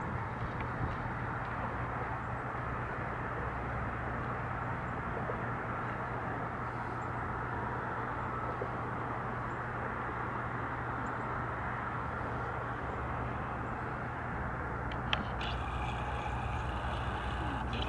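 GE diesel locomotives of an approaching freight train, heard at a distance as a steady low engine drone under an even rumble. Near the end comes a click, then a brief high-pitched tone lasting about two seconds.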